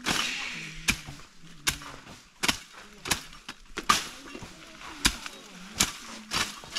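A hand tool striking again and again with sharp, evenly paced blows, about one a second, nine or so in all, as work goes on planting coconut seedlings.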